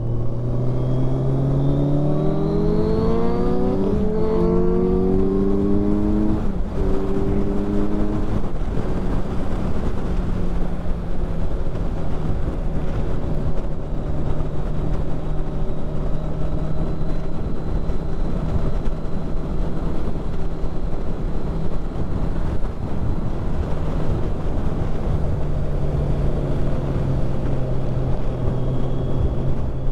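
Kawasaki Ninja 1000SX inline-four motorcycle engine, heard from the rider's helmet, accelerating hard with two upshifts in the first several seconds, then holding a steady drone at cruising speed. A constant rush of wind and road noise runs beneath it.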